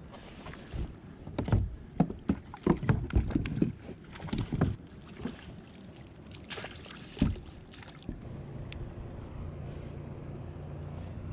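Several loud sharp knocks and clatters on the plastic kayak as a small hooked trout is brought in and handled, bunched between about one and five seconds in, with a few more shortly after. From about eight seconds a steady low motor hum sets in and keeps going.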